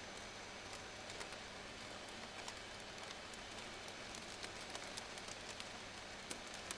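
Thin plastic shopping bags crinkling and crackling with many small irregular snaps as the inflated bag sculpture slowly deflates, over a faint steady low hum.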